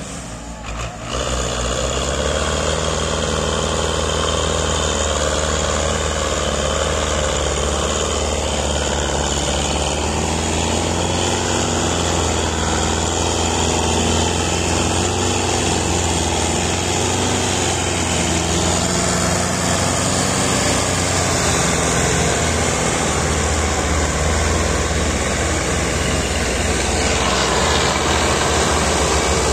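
Farm tractor's diesel engine running hard under load as it hauls a heavily loaded sugarcane trailer: a loud, steady drone that comes up sharply about a second in and holds.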